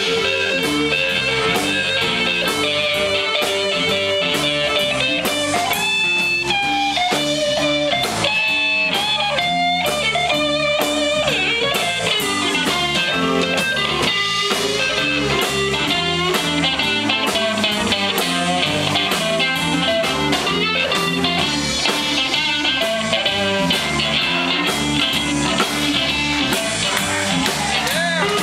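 Live electric blues-rock band playing an instrumental stretch: a lead electric guitar with bent, wavering notes over bass guitar and a drum kit.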